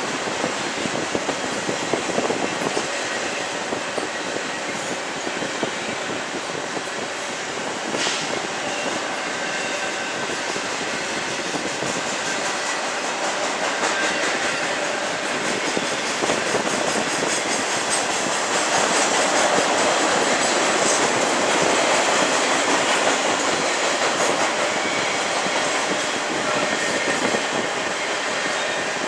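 Freight train cars rolling by at speed: steady wheel-and-rail noise with rapid clickety-clack over the rail joints, getting louder for a few seconds past the middle.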